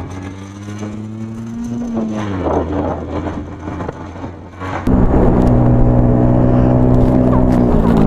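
Motorcycle engine running on a mountain road, its note rising and falling over the first couple of seconds. About five seconds in it jumps suddenly louder to a steady engine note with a heavy low rumble.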